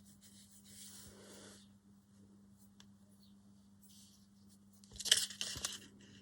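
Paper and craft materials being handled on a desk: soft rustling and small clicks, with a louder burst of rustling and clicks about five seconds in, over a steady low hum.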